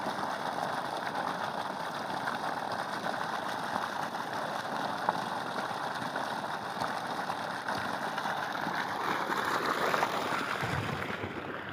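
Steady rush of muddy water gushing from the open end of a submersible borewell pump's discharge pipe and splashing onto sandy ground, the cloudy first flow of a freshly installed pump. It eases off slightly near the end.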